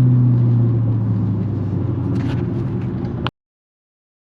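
Turbocharged Dodge Challenger SRT8 V8 idling steadily, with a few faint clicks about two seconds in. The sound cuts off abruptly with a click a little over three seconds in, to dead silence.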